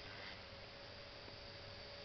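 Align T-Rex 450 SE electric RC helicopter heard faintly in the distance: a steady, thin whine from its motor and rotors over a light hiss.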